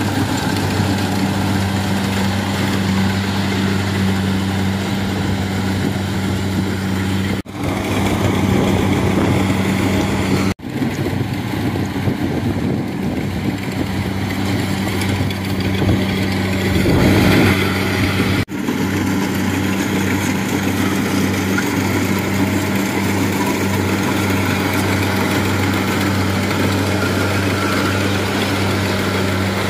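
70 Plus crawler rice combine harvester running steadily while cutting rice: a steady engine hum under mechanical noise, louder for a moment a little past the middle, with brief breaks in the sound three times.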